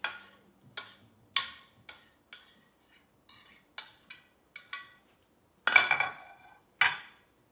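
A utensil scraping and tapping against a white plate as mushroom mixture is scraped off onto pastry, in short sharp clinks every half second or so. Near the end come a louder, longer clatter of dishes and then a single knock.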